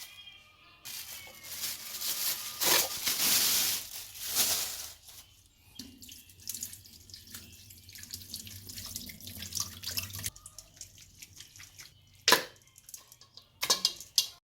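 Running water splashing for a few seconds, then softer trickling with small clicks, and a few sharp knocks near the end.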